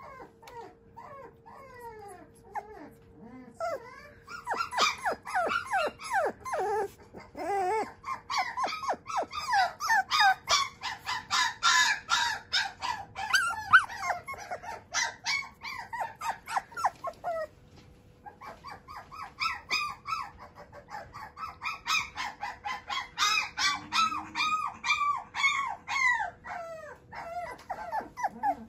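Shiba Inu puppy whining and crying in long runs of short, high-pitched calls, several a second, with two brief lulls.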